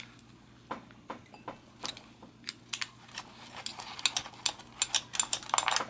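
Small metal clicks and taps of a small wrench working the reflector's mounting nuts on the steel cage of a vintage Atom 440 bicycle pedal, sparse at first and coming quicker near the end.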